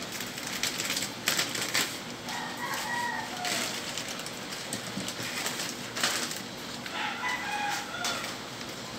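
Plastic mailer bag and wrapping crinkling as a package is torn open and unwrapped by hand. A chicken calls in the background twice, with short falling calls about two and a half seconds in and again near the end.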